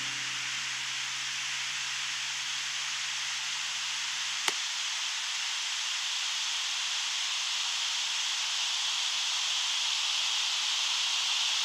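A steady hiss that grows slightly louder, with one sharp click about four and a half seconds in. Low, held music notes die away by the click.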